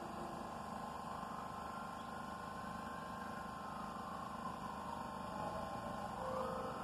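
Idling R68 subway train standing at the platform: a steady electrical hum from its auxiliary equipment, with a whine that rises, falls and rises again in pitch.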